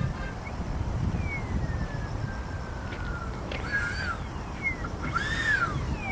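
Twin electric ducted fans of a Skymaster A-10 model jet: a thin whine slowly falling in pitch as it passes low, over a steady low rumble. A few short rising-and-falling chirps sound over it in the second half.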